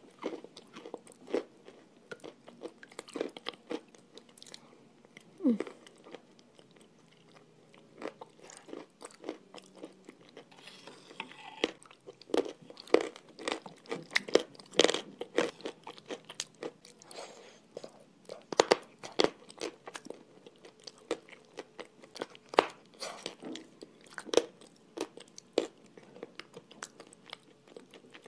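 Close-up mouth sounds of eating a thick, sticky white clay paste mixed with chalk: wet chewing broken by many sharp, irregular crunches and clicks.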